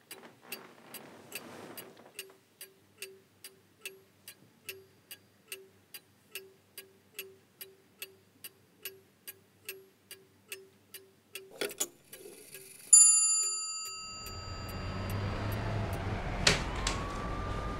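Clock ticking steadily, about two ticks a second, until a single bright metallic ring sounds about 13 seconds in and dies away over a second or two. Then a low rumbling street ambience takes over, with a sharp click and a siren-like tone that rises and holds near the end.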